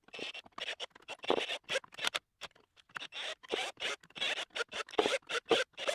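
Steel parts scraping and clicking against each other by hand in many short, irregular strokes.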